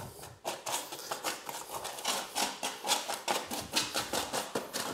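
Metal forks clicking and scraping against sugar-coated almonds as the nuts are pushed apart on a parchment-lined baking tray: a quick, irregular run of small clicks.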